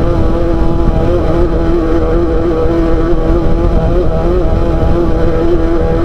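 Off-road race car's engine running hard at a steady, slightly wavering pitch, over a heavy low rumble.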